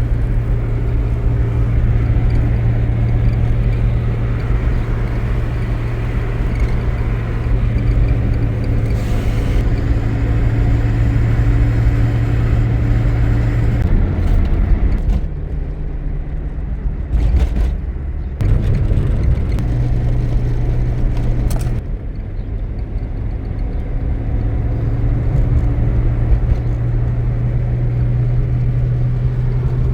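An engine running steadily with a low hum, its speed dropping and rising a few times about halfway through.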